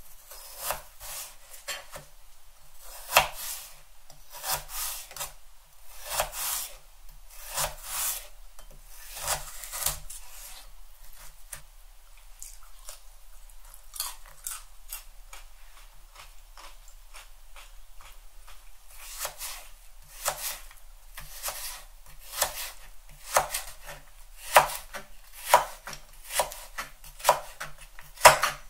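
Kitchen knife slicing raw carrot on a plastic cutting board, each stroke cutting through and knocking on the board. The strokes come about a second apart, thin out for a few seconds midway, then come quicker near the end.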